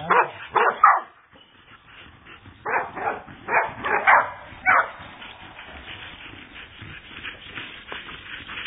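Dog barking in short, sharp barks: four quick barks in the first second, then a run of about five more between three and five seconds in, after which only faint sound remains.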